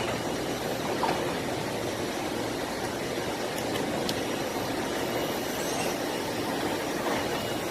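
Spindle of a Doosan BM2740 gantry machining center running steadily at speed during a test run, a steady hum over a broad hiss.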